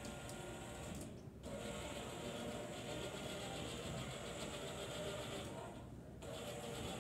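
Drive motors and gearing of a small wheeled robot running steadily as it rolls over a tiled floor, a continuous mechanical whirr that briefly drops away about a second in and again near the end.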